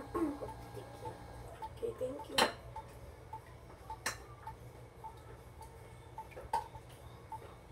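Steady light ticking, like a clock, with two sharp clatters of kitchenware about two and a half and four seconds in, the first one the louder.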